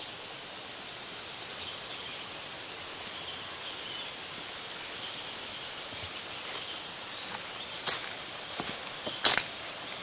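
Forest ambience: a steady hiss with faint high chirps, then a few sharp crackles near the end as footsteps land on dry leaves and twigs.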